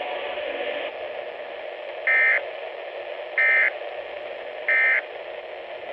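Emergency Alert System end-of-message signal: three short, identical bursts of warbling SAME digital data tones, evenly spaced, marking the close of a severe thunderstorm warning. A steady radio hiss runs underneath.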